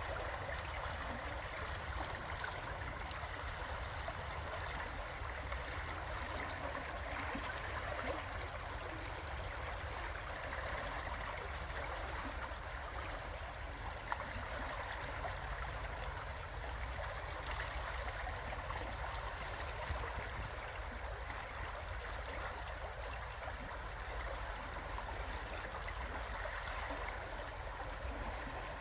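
River water rushing and gurgling over rocks, a steady even flow with a low rumble underneath.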